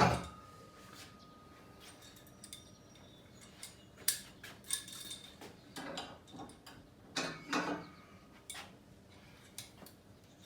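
Steel locking pins and uprights of a folding wall-mount power rack being handled. A sharp metal clank opens with a brief ringing tone, then scattered clicks and clanks follow as the pins are pulled and set down.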